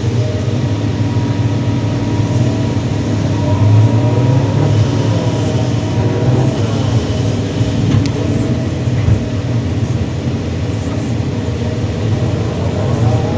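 Kobelco SK330-10 hydraulic excavator working: its diesel engine runs steadily under load, while a hydraulic whine rises and falls in pitch as the machine digs and swings. There is one sharp tick about eight seconds in.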